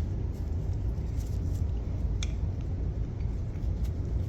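A few faint, sharp clicks and taps of a metal bolt and steering column parts being handled as the bolt is worked into its hole, over a steady low rumble.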